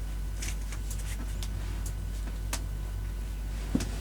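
Soft, brief brushing and rubbing sounds of hands massaging a body, a few times, over a steady low hum, with one short sharp click near the end.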